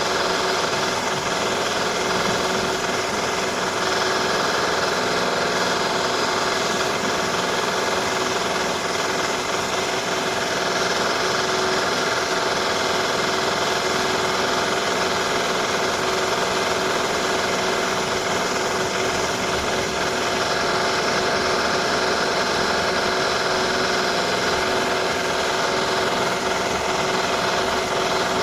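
Renovation drilling: a power drill running steadily without a break, a continuous mechanical buzz with several held tones.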